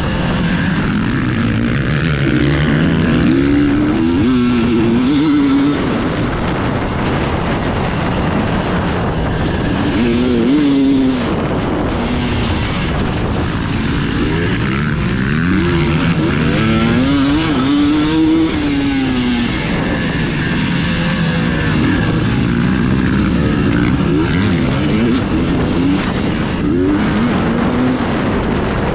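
2021 KTM 300 EXC two-stroke enduro bike ridden hard around a motocross track. The engine revs up and drops back again and again as the rider works the throttle and gears.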